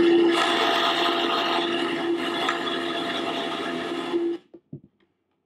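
Countertop blender running steadily, puréeing cooked mushrooms and crème fraîche into a thick cream, then switched off about four seconds in, followed by a few faint knocks.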